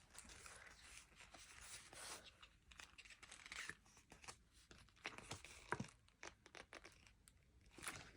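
Packaging being torn open and crinkled by hand, faint, in irregular rustles and small sharp crackles.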